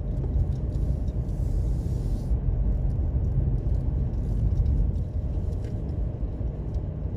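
Steady low rumble of a car's engine and tyres, heard from inside the cabin as it drives slowly along a gravel park lane.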